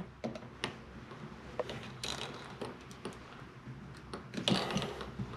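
Faint scattered clicks and light taps of hand work or handling, with louder knocking rustles about two seconds in and again near the end.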